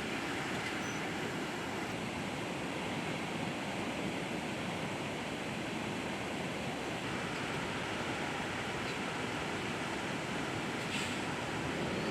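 Rushing water from a reservoir's discharge, a steady, even rush of noise.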